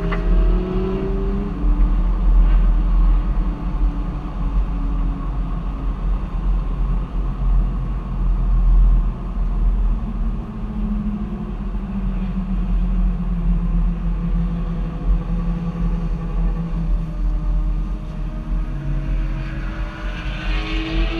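Car engine running while driving, its pitch rising and falling gently over a steady road rumble.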